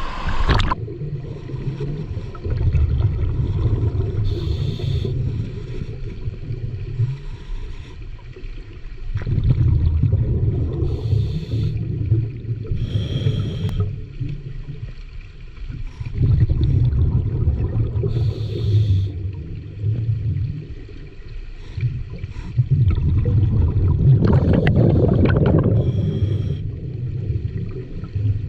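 Scuba regulator breathing heard underwater: long, low, rumbling bursts of exhaled bubbles about every six or seven seconds, with brief higher hisses in between.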